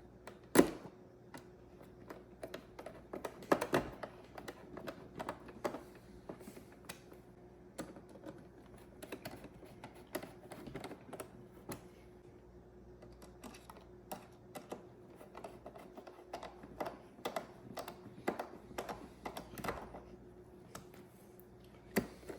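Irregular clicks and taps of a coffee maker's plastic housing panels being handled and fitted, with a few louder knocks.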